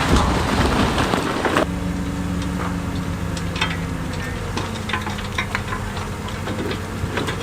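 Heavy diesel earthmoving machine running steadily, with scattered knocks and clatters of stone. A dense rushing noise fills the first second and a half, then stops, leaving the engine hum, whose pitch shifts slightly partway through.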